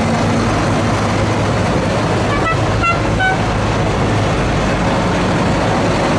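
Several large diesel tractor engines running together in a steady low drone. A few short, high horn-like toots sound around the middle.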